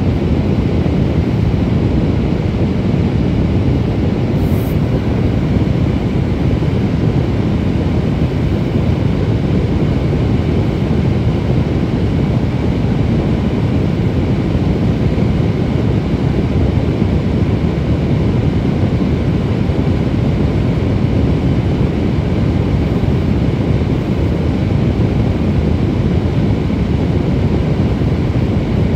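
Steady, loud low rumble of a vehicle in motion, unbroken and unchanging.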